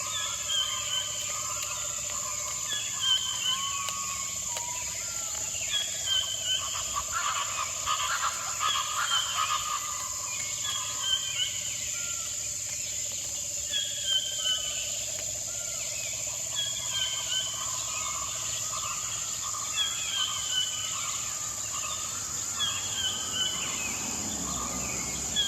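Jungle ambience: short descending bird calls repeating about every three seconds, with other scattered calls among them, over a steady high-pitched insect drone.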